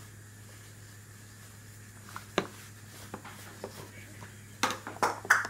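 Clear plastic bowls knocking against each other and a high chair tray: a few light knocks from about two seconds in, then a quick run of louder clacks near the end.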